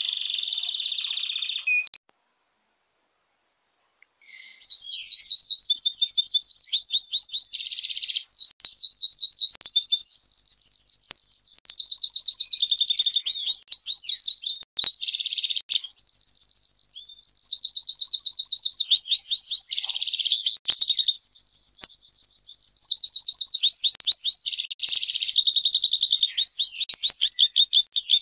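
A small finch singing a long, fast warbling song of rapid trills and rolls, high-pitched, with only brief breaks. An earlier phrase stops about two seconds in, and after a short silence the song starts again about four and a half seconds in.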